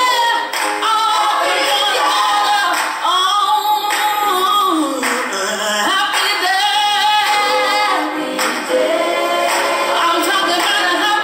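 A song with singing voices.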